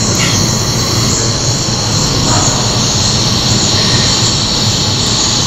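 Steady, loud rush of water from a small cascade splashing into an exhibit pool, with a low hum underneath.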